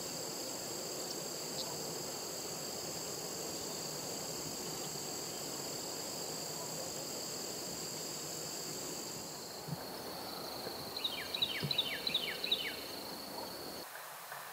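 Insects, crickets or the like, droning steadily on two high pitches over a low outdoor hiss. Near the end a bird calls a quick run of about eight short, falling notes.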